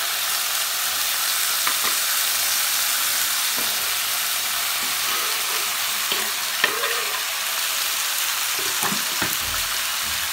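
Oil and spices sizzling steadily in a pan, a constant hiss, with a few sharp clicks and knocks as chopped tomatoes are scraped off a wooden cutting board into the pan.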